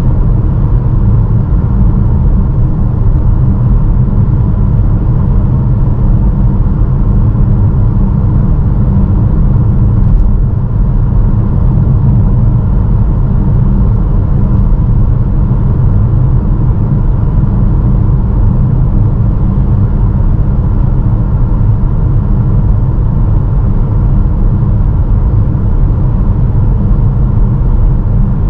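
A 2022 Honda HR-V e:HEV hybrid driving at a steady speed, with a loud steady low rumble of road, tyre and wind noise; the tyres are Goodyear UltraGrip Ice 2 winter tyres. One light click comes about ten seconds in.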